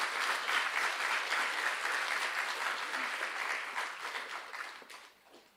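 An audience applauding, with many hands clapping together; the clapping dies away near the end.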